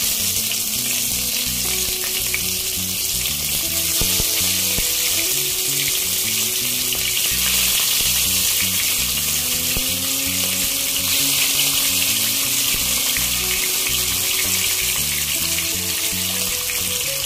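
Nile tilapia steaks sizzling as they shallow-fry in hot oil in a nonstick wok: a steady, dense hiss, with a few soft knocks as more pieces are laid into the pan.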